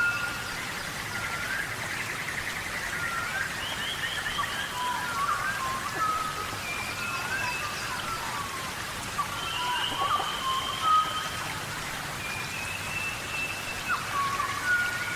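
Tropical rainforest rain falling steadily, with many short whistled calls, chirps and a rapid trill from animals in the forest.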